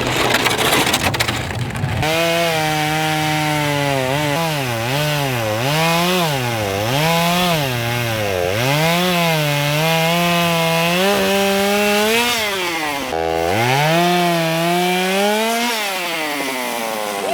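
Two-stroke chainsaw cutting into a thick log, its engine pitch dipping and recovering again and again as the chain bites into the wood. About 13 seconds in it falls briefly to near idle, then revs back up.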